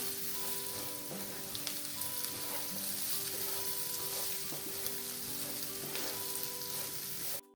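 Potatoes and dried sprats frying in oil in a pan, sizzling steadily while being stirred with a spoon, with small scraping clicks; the sound cuts off abruptly near the end.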